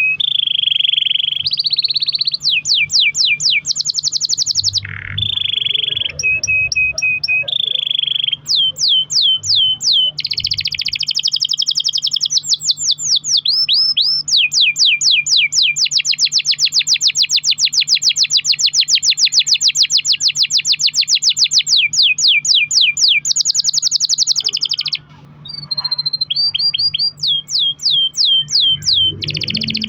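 Canary singing a long rolling song: fast trills of quick falling notes, broken by short held tones, with one long roll of about eight or nine notes a second lasting some ten seconds in the middle.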